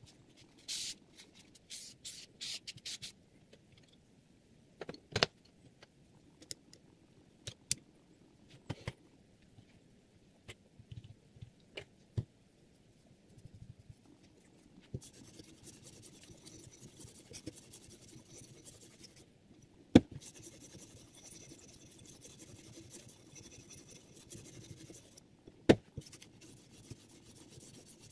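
Clicks and knocks of metal parts being handled while a knife is clamped into a Hapstone R2 guided sharpener and a stone holder is fitted onto its guide rod. A faint steady hiss sets in about halfway, with two sharp clicks in the second half.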